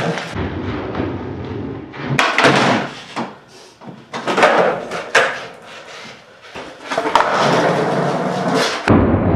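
Skateboard wheels rolling on a concrete floor, broken by several sharp clacks and thuds as the board pops and strikes a low wooden box, the first about two seconds in.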